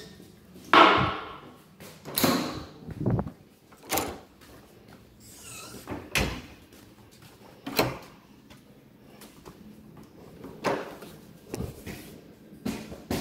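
Doors being handled: a string of about ten irregular knocks and clicks, the loudest about a second in.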